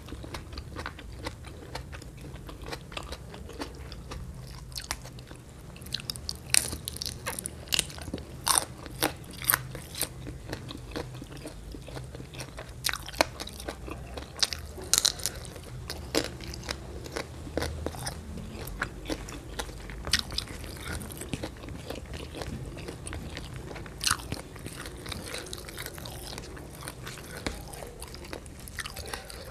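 Close-miked eating sounds of biting and chewing spicy stir-fried shrimp, with sharp crunching clicks scattered throughout over a steady low hum.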